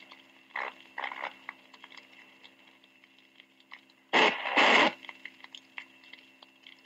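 Dallas Police Dictabelt radio channel recording, played back at half speed, between transmissions: a steady low hum with faint crackles and clicks, and about four seconds in a brief, loud double burst of radio noise or garbled transmission.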